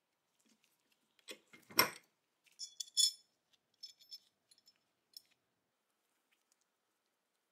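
Steel parts of a Remington pump-action .22 rifle being handled on a workbench: a dull knock about two seconds in, then a short run of ringing metal clinks and a few light clicks.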